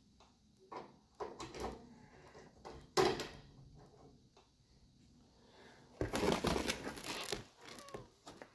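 A ceiling fluorescent light fixture being handled by hand: scattered light clicks and knocks, with one sharp snap about three seconds in. Near the end comes about a second and a half of rustling.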